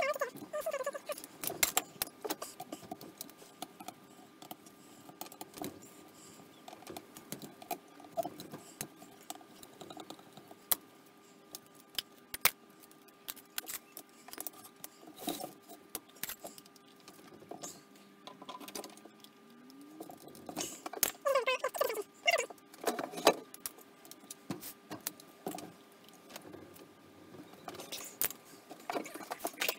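Irregular metallic clicks, clinks and taps as a Holley four-barrel carburettor is taken apart by hand with a screwdriver, its parts and cast body knocking together and against the bench.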